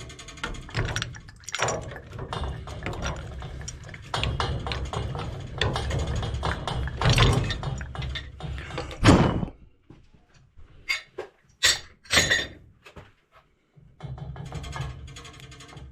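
Wrenches and metal pipe fittings knocking and clanking as threaded water-heater piping is worked on, over a steady low rumble. The rumble drops away for a few seconds in the second half, leaving a few sharp clicks, then comes back near the end.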